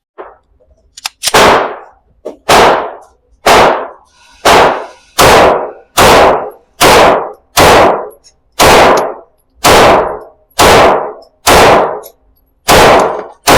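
A 9mm semi-automatic pistol fired in slow, steady succession, about thirteen shots roughly one a second, each with a short reverberant tail.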